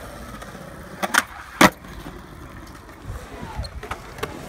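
Skateboard clacking sharply against concrete three times about a second in, the last hit the loudest, with a low rumble of wheels rolling on concrete.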